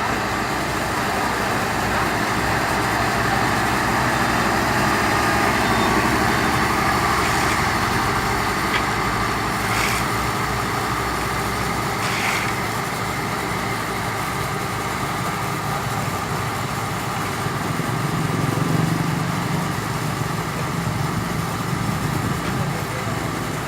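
Heavy diesel engine of road-paving machinery running steadily, with two short hisses about ten and twelve seconds in.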